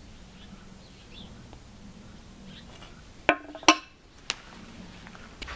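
A heavy steel mandrel disc set down on the steel plate of a metal-bending machine: two sharp metal clanks with a short ringing about three seconds in, then two lighter taps.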